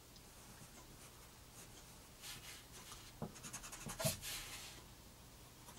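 Pencil scratching on paper in a few short, faint strokes, about two to four seconds in.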